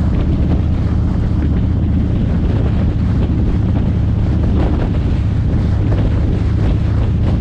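Wind rushing over the microphone of a camera on a moving vehicle, over the steady low drone of its engine and tyres on the road.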